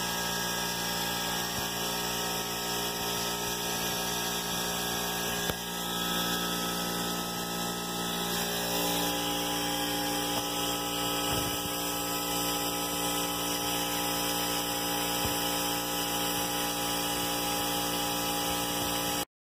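Air compressor running steadily, driving a venturi vacuum generator with a constant hiss of air as it pulls a vacuum on the oven chamber. A click about five and a half seconds in, and a new steady hum joins about nine seconds in; the sound cuts off suddenly near the end.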